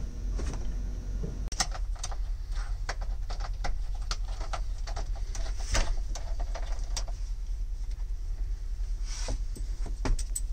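Plastic interior panels of a truck sleeper's overhead storage cabinet knocking and clicking as the cabinet is lifted and fitted into place: many irregular short knocks and clicks over a steady low hum.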